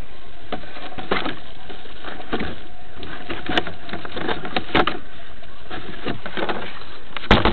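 Handling noise on a small onboard camera mounted in an RC truck: scattered clicks, knocks and rubbing as the truck is picked up and a hand touches the camera, over a steady hiss, with a louder knock near the end.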